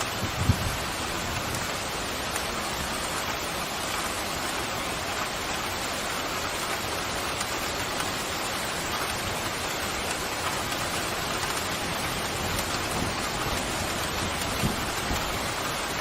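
Steady rain, an even hiss of falling water, with two brief low thuds, one just after the start and one near the end.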